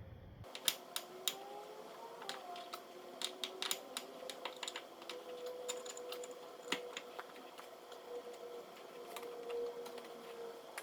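Irregular light clicks and metallic taps of tools and parts being handled while a CV axle is fitted, over a faint steady hum.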